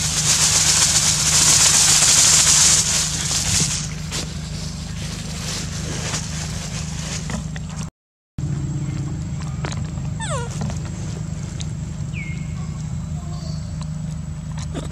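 Plastic bag crinkling and rustling loudly for about the first four seconds, then stopping suddenly. A brief high, falling call sounds once about ten seconds in.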